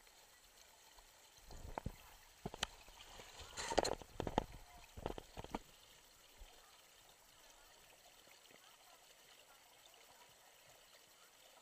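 Water running down a water-park body slide, a faint steady rush. About two seconds in comes a flurry of knocks and bumps lasting around four seconds, then only the water.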